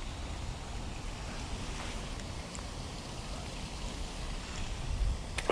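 Steady low rushing outdoor noise of wind on the microphone and flowing creek water, with one sharp click near the end.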